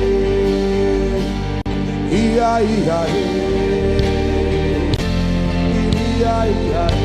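Gospel worship music: a voice singing long held, wavering notes over a steady instrumental backing.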